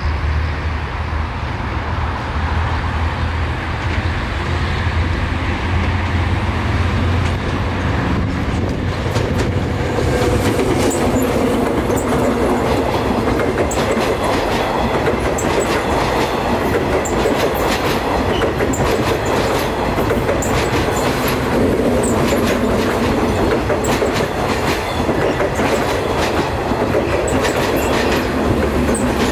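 Electric multiple-unit commuter train running past close by. A low steady hum as it comes in gives way, about a third of the way in, to wheels clicking over the rail joints in quick runs over a rumble.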